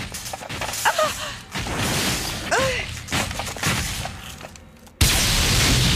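Cartoon action sound effects of an attack: clattering and thuds, with two short sounds falling steeply in pitch, then a sudden loud blast of steady noise about five seconds in.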